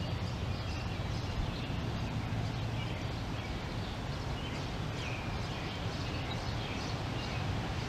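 Outdoor ambience: a steady low hum with short faint bird chirps over it.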